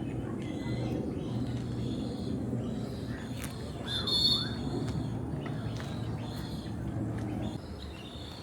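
Mixed birds in a walk-through aviary calling and chirping: repeated short high calls and a few whistled glides, loudest around the middle, over a low murmur of people's voices.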